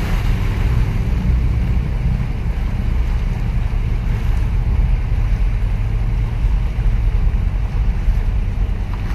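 Steady low rumble of the container ship CSCL Long Beach passing close by under way, with waves washing over the breakwater's concrete blocks and wind on the microphone.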